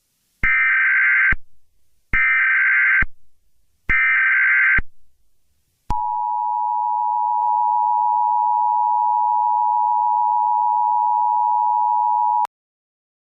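Emergency Alert System broadcast tones: three short bursts of SAME header data, each under a second, then the steady two-tone attention signal held for about six and a half seconds before cutting off abruptly. The sequence marks the start of an emergency alert message.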